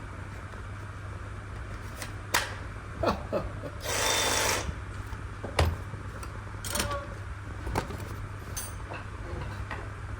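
Hand work on a fitting: scattered knocks and taps, with one short burst of a power tool about four seconds in, over a steady low hum.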